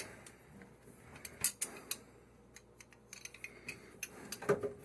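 Light, irregular metal clicks and clinks of brass plumbing fittings being handled and threaded on by hand.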